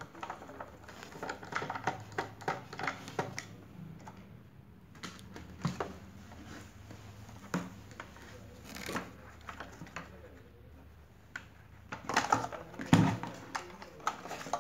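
A screwdriver turning out the screws of a sandwich maker's plastic cable cover, with rapid small clicks in the first few seconds, then scattered knocks of plastic as the cover comes off and the appliance is handled. A louder run of knocks and clatter comes near the end as the unit and its power plug are handled.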